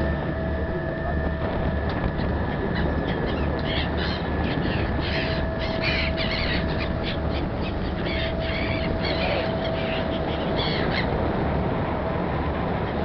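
A flock of gulls calling around a passenger ferry, with many short cries coming thick and fast from about two seconds in until near the end. Under them runs the ferry's steady low engine drone.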